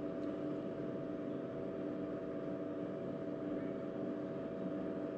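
Steady mechanical hum with several constant tones, unchanging throughout.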